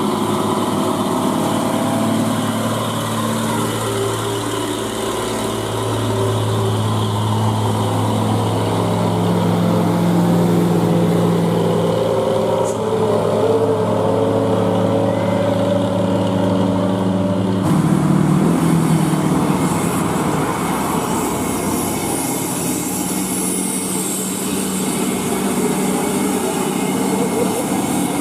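Heavy diesel truck engine running under load, its pitch shifting as it pulls, with an abrupt change in the sound about 18 seconds in.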